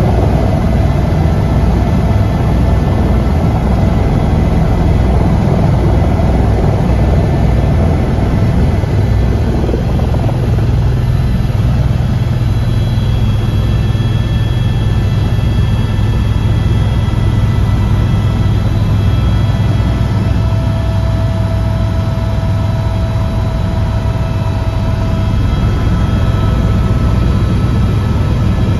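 Helicopter's turbine engine and rotor heard from inside the cabin, loud and steady. About ten seconds in a deep hum grows stronger as power comes up for lift-off and the climb away.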